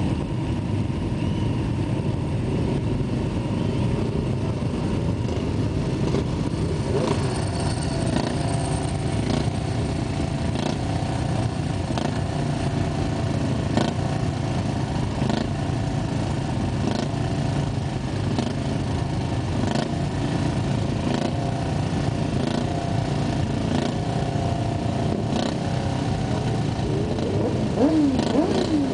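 Many motorcycle engines idling together in a stationary pack, a steady mixed engine drone. Near the end one engine revs up and down a few times.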